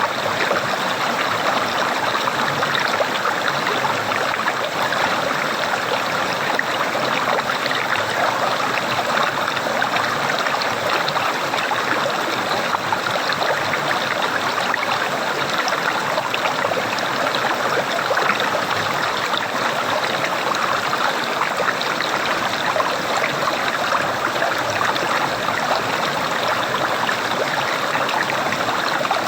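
Running water gurgling steadily with no let-up.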